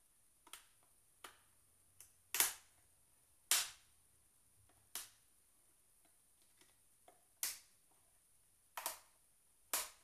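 Plastic retaining clips of an MSI GS60 laptop's bottom cover snapping loose as the cover is pried open with fingernails: about nine sharp snaps at irregular spacing, the loudest about two and a half and three and a half seconds in.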